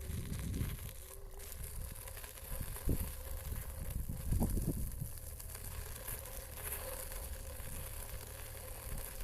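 Scooter rolling along a road: a low rumble of wheels and wind on the microphone, with light rattling. There are two brief louder knocks, about three seconds and about four and a half seconds in.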